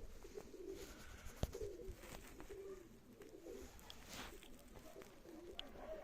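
Baku pigeons cooing, a continuous run of low warbling coos, with a single sharp click about one and a half seconds in.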